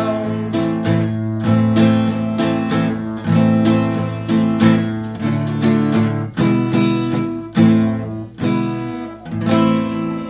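Acoustic guitar (violão) strummed in a steady rhythm, playing the closing instrumental bars of a song, with a last strong strum near the end.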